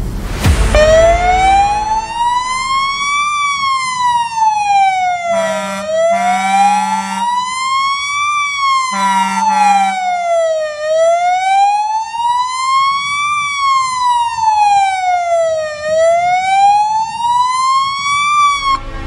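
Fire truck siren sounding a slow wail, its pitch rising and falling about once every five seconds. Three short blasts of a horn come about five to ten seconds in.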